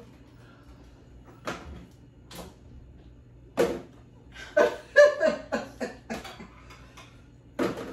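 Eating sounds at a dining table: a few sharp clicks spaced about a second apart, then a quicker run of clicks mixed with short voice sounds about four to six seconds in.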